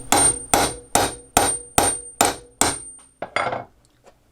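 A hammer pounding a steel hollow hole punch through a cloth buffing wheel: about eight even blows, two to three a second, with the punch ringing faintly between them, then a couple of lighter taps as the punch breaks through.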